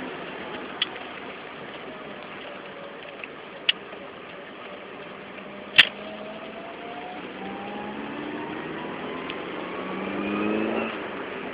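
A vehicle on the move, the noise the uploader presents as abnormal hub noise, with a whine that rises steadily in pitch through the second half and grows loudest shortly before the end. A few sharp clicks come through, the loudest about halfway.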